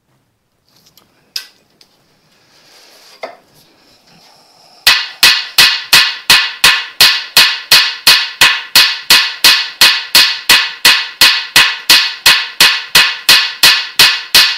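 Hammer striking a seized, broken bolt in a cast-iron Ford flathead V8 block, to shock it loose. A long run of quick, even blows, about three a second, each with a short metallic ring, starts about five seconds in, after a few light tool clicks.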